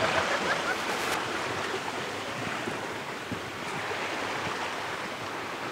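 Steady rushing hiss of outdoor ambience, with a faint click about a second in.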